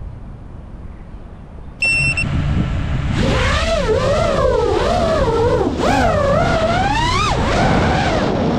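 FPV racing quadcopter's brushless motors: they start suddenly with a steady whine about two seconds in, then whine in pitch that swoops up and down quickly as the throttle changes through flips and dives.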